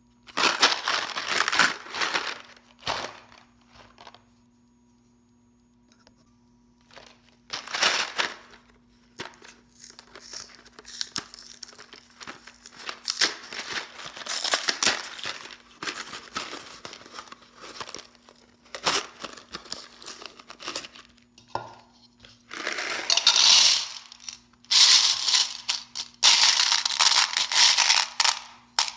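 Mike and Ike candy packaging being handled and torn open: crinkling and tearing in irregular bursts, with a quiet pause about four seconds in and the loudest handling in the last few seconds.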